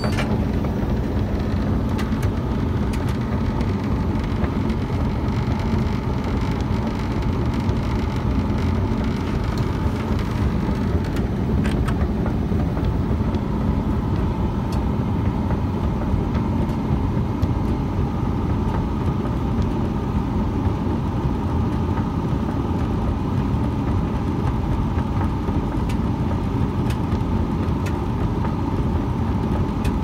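Candy Smart Touch tumble dryer running a load of bedding and towels, a steady whoosh and hum of motor, fan and turning drum, with occasional faint clicks.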